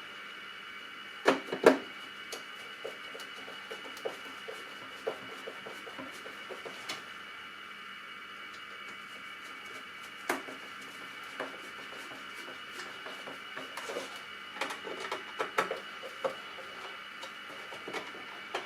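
Scattered clicks and knocks of plastic parts being handled, the loudest a pair a second or so in, with more around the middle and near the end, over a steady high-pitched hum.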